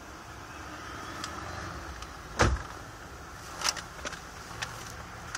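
Low steady hum of a car idling, with one loud thump about halfway through and a few short rustles after it as a paper bag is handled.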